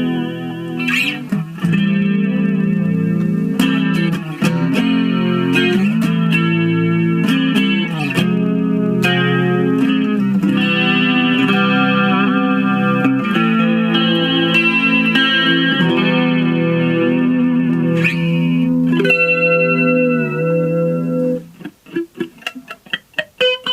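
Yamaha SE350H electric guitar played through a small Roland Micro Cube amp: chords strummed and left to ring, changing every second or so. For the last two seconds it turns to short, choppy notes.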